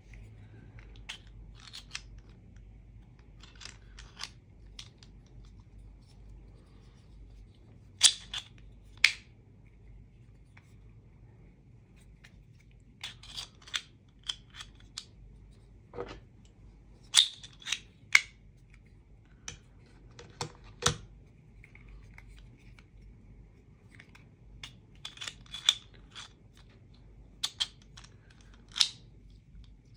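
3D-printed plastic gravity knife fidget toy flicked open and shut by hand: sharp plastic clicks and snaps as the blade slides out and locks, coming singly and in quick pairs with pauses between.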